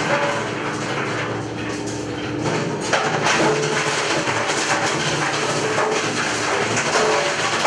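Electric bone-crushing mill running while bones are fed into its hopper, a steady machine noise full of irregular cracks and crunches as the bones break. About three seconds in there is a sharp crack, and it runs a little louder after that.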